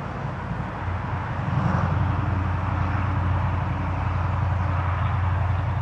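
A steady low engine hum that grows louder about a second in and then holds.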